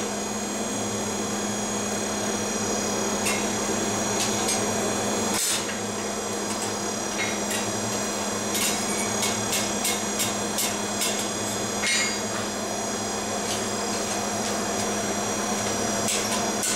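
Light, irregular metal-on-metal taps and clinks from a ball-peen hammer working a small piece on an anvil, over a steady mechanical hum.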